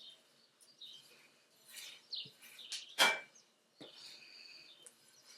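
Small birds chirping repeatedly in short high calls, with one sharp knock about three seconds in.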